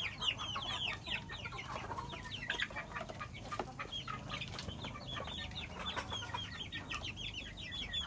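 A flock of chickens clucking and chirping, many short high calls overlapping without a break.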